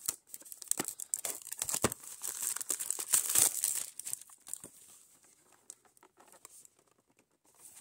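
Plastic shrink-wrap being picked at and torn off a small cardboard box, crinkling and crackling, loudest about three seconds in. After about four seconds it dies down to faint handling of the box.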